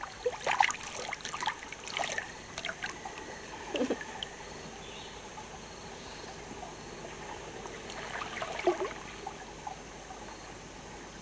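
Soft splashing and trickling of river water stirred by a person wading and swimming, over a faint steady hiss. The splashes come mostly in the first few seconds and again about eight to nine seconds in.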